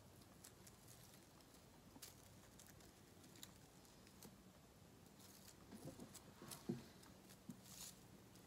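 Near silence with faint scattered rustles and light ticks from a satin ribbon bow and flowers being handled, and one sharper tap late on.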